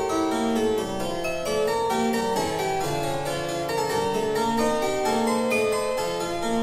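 Background harpsichord music, a steady stream of plucked keyboard notes.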